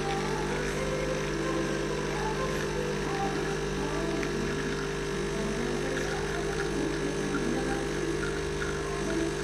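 Milesto EM18 E3 espresso machine's pump running with a steady hum during brewing.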